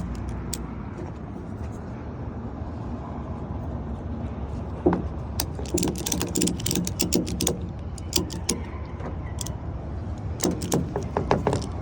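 Ratchet strap being cranked tight to hold down a load of drywall: runs of sharp metallic clicks starting about five seconds in, over a steady low rumble.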